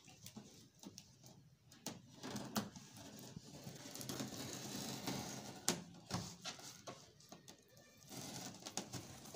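A knife slitting packing tape on a styrofoam box: soft scraping with scattered clicks and taps, a longer scrape through the middle.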